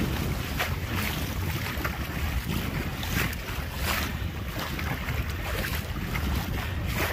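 Strong wind buffeting the microphone with a gusting low rumble, over small sea waves washing and splashing at the shoreline.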